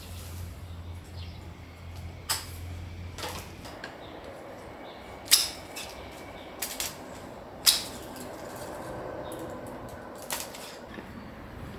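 Hand pruning shears snipping through climbing vine stems: several sharp snips a couple of seconds apart, two of them louder than the rest.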